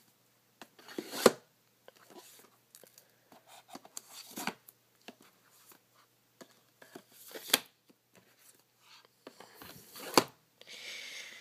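Plastic DVD cases slid one by one into a cardboard slipcase box: scraping and rustling, with four sharper knocks about three seconds apart as cases go in.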